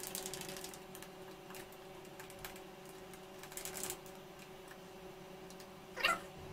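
Metal spoon stirring a glass of iced milk and whipped coffee, clinking and scraping against the glass and ice cubes in a string of light, irregular clicks. Under it is a faint steady hum, and a brief breathy sound comes near the end.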